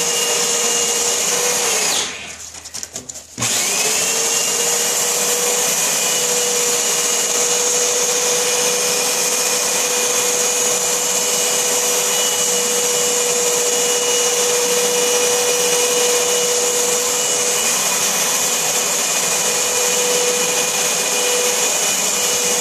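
Electric drill spinning a red oak handle blank on a drill-driven lathe jig while a 100-grit sanding disc is held against the turning wood, a steady motor whine. About two seconds in the motor stops, then spins back up with a rising whine and runs steadily again.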